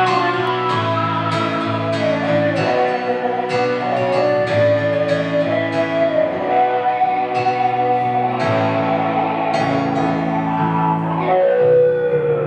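Live art-rock music: a guitar plays picked notes under a high melody held in long, wavering notes, the opera-style voice of the song.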